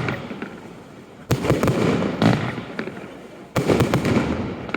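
Firework display: two loud bursts, about a second in and again about two seconds later, each a sudden bang followed by a dense spray of small pops that fades away.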